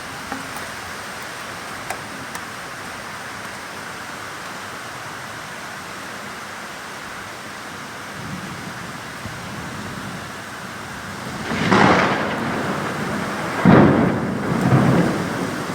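Steady heavy monsoon rain, with two loud cracks of thunder near the end, the second followed by a short rumble.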